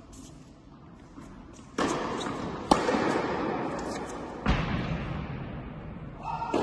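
Tennis ball strikes and bounces echoing in an indoor tennis hall: a sharp crack a little under three seconds in and a heavy thud about halfway through, over a rushing noise that comes up suddenly about two seconds in.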